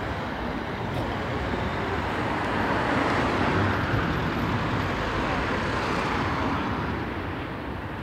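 A car driving past on the street, its tyre and road noise growing to a peak about halfway through, then fading away.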